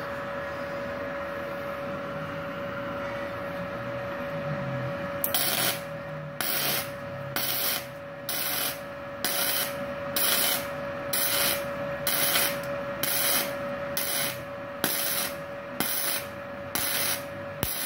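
MIG welder running gasless flux-core wire, striking the arc in short bursts of about half a second, roughly one a second, starting about five seconds in. This is stitch welding of thin-wall hollow section: short welds are laid one by one because a long continuous weld burns through the thin metal.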